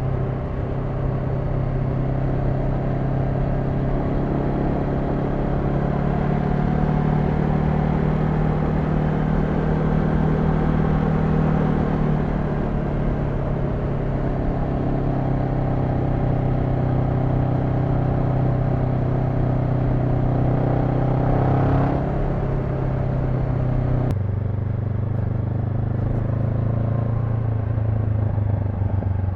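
Honda NX500's 471 cc parallel-twin engine running steadily under way, with a haze of wind and road noise. The revs rise a little past twenty seconds in; then the throttle closes about twenty-four seconds in and the engine note drops to a lower, steadier drone.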